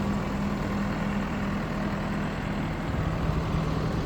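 John Deere 310K backhoe loader's diesel engine idling steadily.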